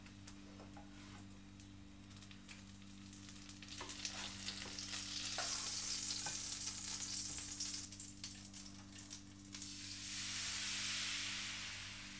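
Butter sizzling in a hot crepe pan: the hiss builds about four seconds in, dies down, then swells again near the end. A few light taps and scrapes of a spatula on the pan come before the sizzle, over a steady low hum.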